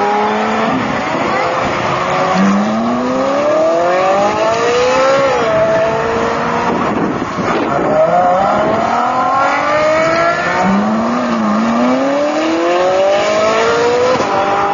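Ferrari 458 Italia V8 engines accelerating hard away, one car after another. Each engine note climbs steadily in pitch through a gear, then drops sharply at the upshift and climbs again.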